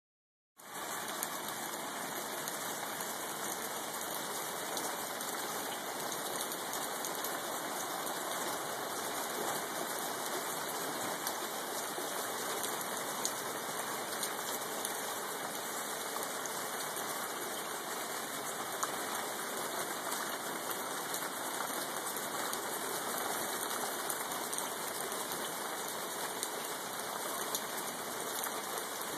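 Steady rain falling, an even dense hiss with scattered faint drop ticks.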